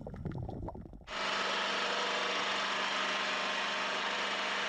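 A boat's engine running at sea: a steady hum under a broad rushing noise that starts suddenly about a second in and holds an even level. Before it, a faint low irregular rumble.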